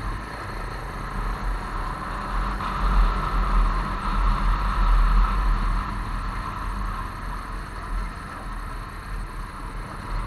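Riding noise picked up by a camera on a moving motorcycle: wind rumbling on the microphone over the motorcycle engine running, a little louder for a couple of seconds in the middle.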